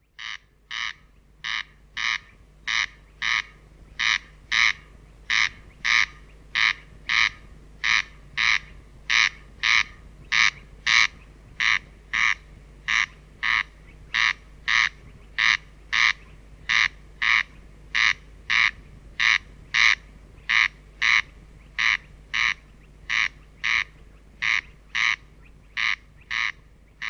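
Corncrake calling: a harsh, rasping note repeated steadily, about three calls every two seconds without a break.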